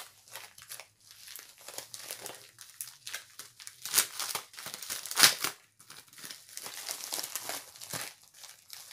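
Clear plastic packaging bag crinkling as it is handled and unfolded, in irregular crackles, the loudest about four and five seconds in.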